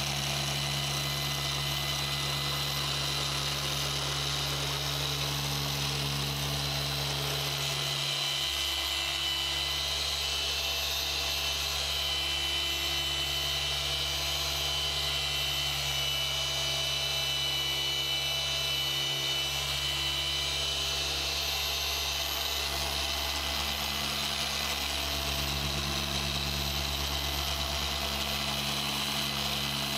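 Rupes Bigfoot random-orbital polisher running steadily with a foam pad on car paint during the compounding (cutting) stage: a steady low hum with a higher whine. The hum dips briefly twice, about eight and nineteen seconds in.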